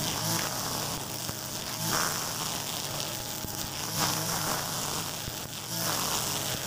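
Mitsubishi petrol brush cutter with a nylon string line running at high revs while cutting grass, its buzz swelling and easing roughly every two seconds as the line sweeps through the grass.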